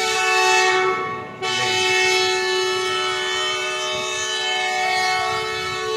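Pakistan Railways locomotive horn sounding a short blast, then a long held blast, a steady two-note chord. It is the train's signal that it is about to pull out of the station.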